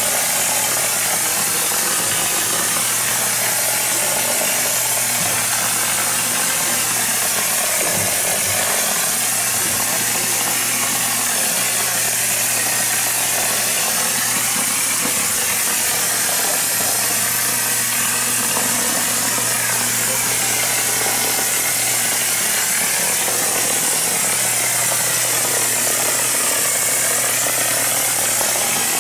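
Spray Tech premix spray-up gun spraying a cement premix: a steady hiss of compressed air and spray, with a steady low machine hum beneath it.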